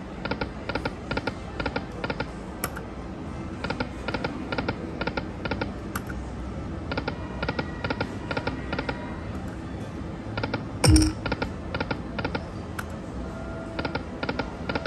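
Video slot machine spinning its reels over and over, each spin ending in a quick run of about five clicks as the reels stop one after another, over the machine's steady background sound. A single thump comes about two-thirds of the way through.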